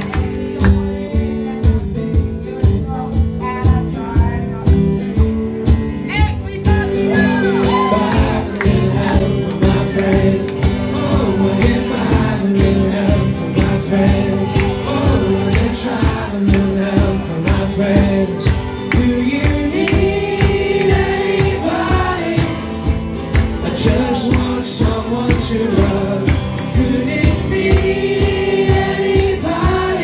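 Live band playing a song with a steady drum beat, bass and chords; singing comes in about seven seconds in.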